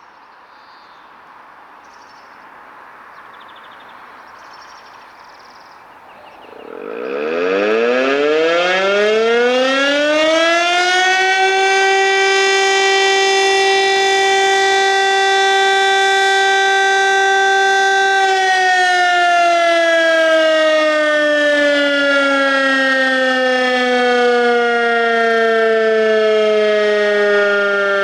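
Fire brigade alarm siren calling out the volunteer firefighters. After about six seconds of faint background it starts up with a rising wail, holds one steady tone, then slowly winds down in pitch.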